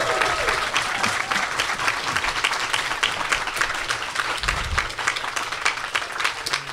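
Audience applauding: many hands clapping quickly, thinning out toward the end.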